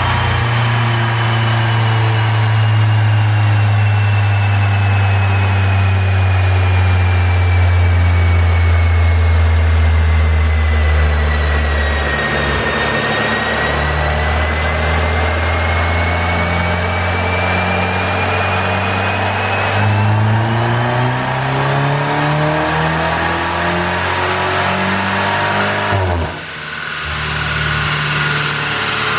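Mercedes-Benz W205 C200's turbocharged four-cylinder engine running under load on a chassis dyno, with a high whine falling and then rising above the engine note. In the last few seconds the revs climb steadily in a full-throttle pull, then cut off abruptly as the throttle closes about 26 seconds in.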